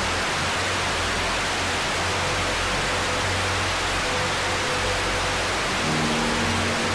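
Television static: a steady, loud hiss across the whole range, over a low hum, as the TV loses its signal. Low sustained tones come in under it near the end.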